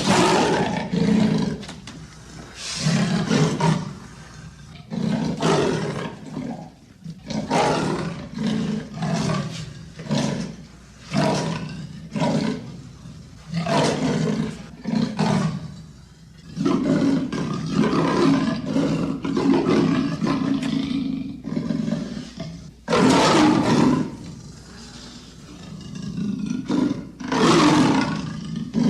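Leopard giving its sawing call: a long series of deep, rasping grunts, roughly one a second, with a few longer, louder calls in the second half.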